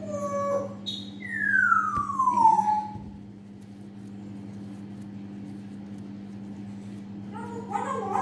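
A dog whining: one long cry, falling steadily in pitch, about a second in, over a steady low hum.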